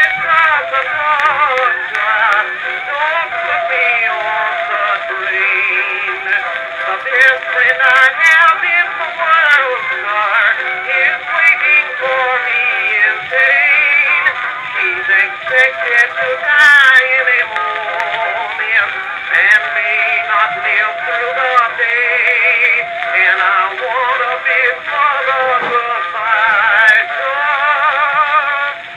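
Music played back from an Edison Blue Amberol cylinder record, an acoustic-era recording with a narrow, thin sound that has nothing above about 4 kHz.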